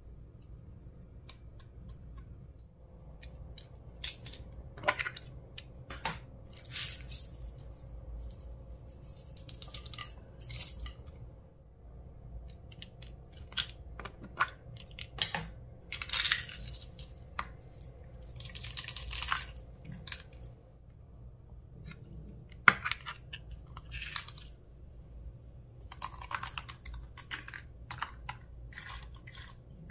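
Slime being mixed and squished by hand: scattered sticky crackles and pops, with sharp clicks and taps now and then, the sharpest about two-thirds of the way through.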